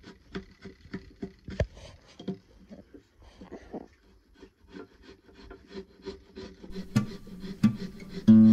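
Wide framing chisel paring and scraping the floor of a housing cut in a timber beam. It makes short, quick strokes, about three a second at first, then sparser and uneven, with a couple of sharper knocks near the end. Acoustic guitar music comes in just at the end.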